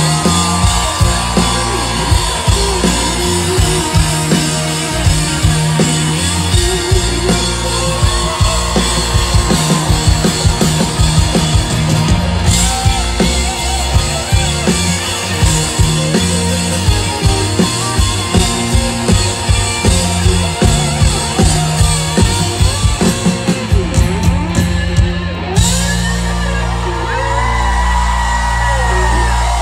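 Live rock band playing loud through a concert PA: drum kit keeping a steady beat under guitars and keyboard. About 26 seconds in the drums stop and the band holds a ringing chord.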